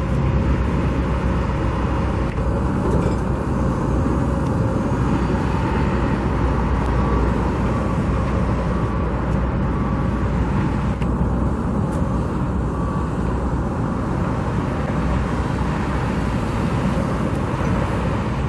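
Steady road traffic noise from cars passing on the street.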